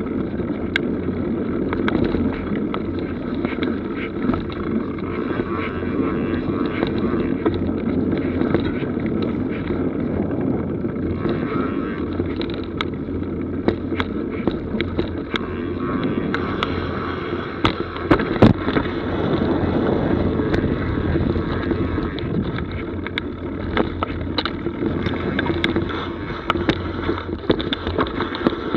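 Mountain bike rolling over a dirt forest trail: a steady rumble of tyres and rattling bike with wind on the microphone, and frequent sharp clacks and knocks as it runs over bumps, one louder knock a little past the middle.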